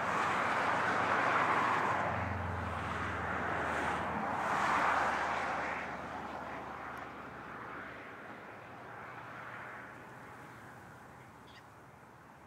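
Vintage Brill railcar towing one carriage, running past at a distance: a low engine drone and a rushing wheel-and-rail noise that swells twice early on and then fades away steadily.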